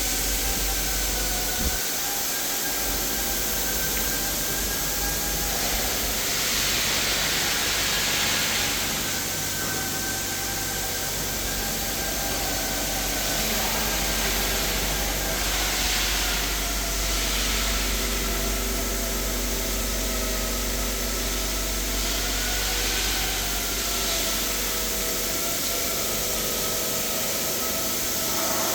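Steady machine noise with a low hum and several slowly wavering whining tones, broken three times by a few seconds of loud hissing.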